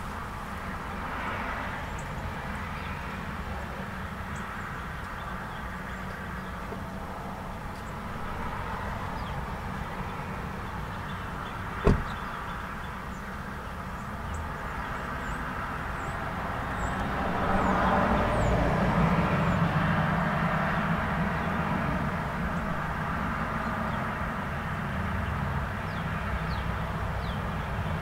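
Light road traffic: a steady wash of car and truck noise, swelling as a vehicle passes about two-thirds of the way through. A single sharp knock near the middle, and a few short bird chirps.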